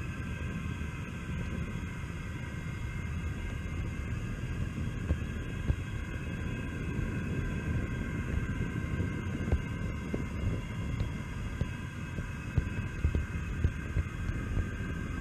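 Model train locomotive running along the track, heard from a camera riding on it: a steady motor whine over a low rumble of wheels on the rails, with a few sharp clicks.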